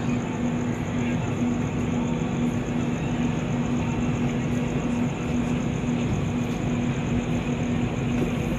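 Steady diesel train drone with an evenly pulsing low hum, no distinct events; the oncoming train is still far down the line.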